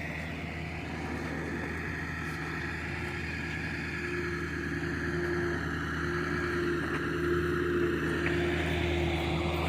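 A vehicle engine running steadily with a low hum, growing a little louder toward the end.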